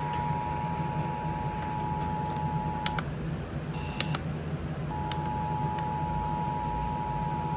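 Emergency Alert System attention signal: a steady two-tone alarm that breaks off just before three seconds in, blips briefly near four seconds and resumes about five seconds in. A few sharp clicks and a low hum sit underneath.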